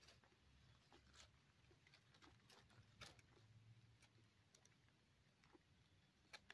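Near silence with a faint low background hum and a few soft scattered clicks, the sharpest about three seconds in and again near the end.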